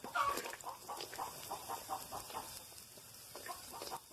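Chickens clucking: a quick run of short calls, about four a second, with a few more near the end. A faint ladle scraping in an aluminium pan sits underneath.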